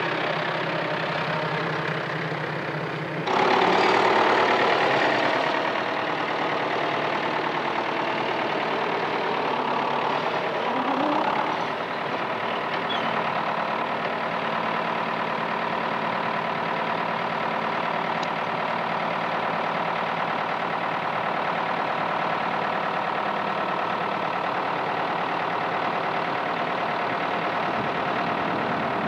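Farm tractor's diesel engine running steadily close by, working a front loader with round bales. It gets louder about three seconds in.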